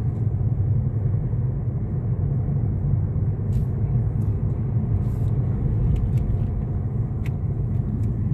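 Car cabin noise while driving: a steady low rumble of engine and tyres heard from inside the moving car.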